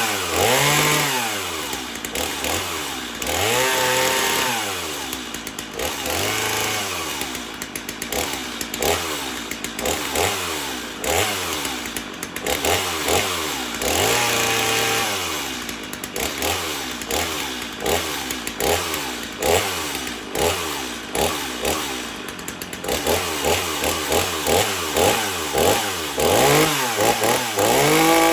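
Stihl MS 250 two-stroke chainsaw (45cc) revved up and down off the wood, working and oiling a new chain. First it gives several long revs, then about two-thirds of the way in it switches to quick short blips of the throttle, about two a second.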